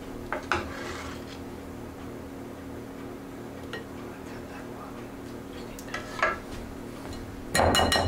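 Metal ladle clinking and scraping against a stainless steel pot and a wire mesh sieve while soup is ladled in to be strained, with a few light clicks and then a louder metallic clatter near the end. A steady low hum sits underneath.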